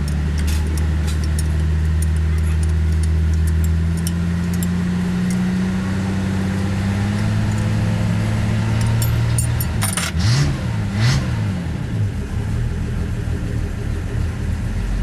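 A vehicle engine running steadily, its pitch climbing slowly at first, then rising and falling around ten seconds in, with a couple of short hissy bursts.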